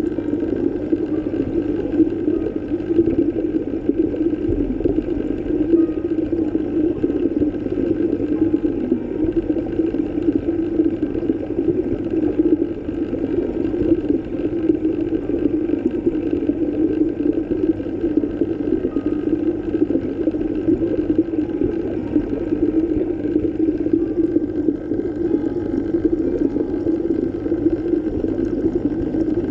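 Underwater ambience: a steady, low, rumbling wash of water.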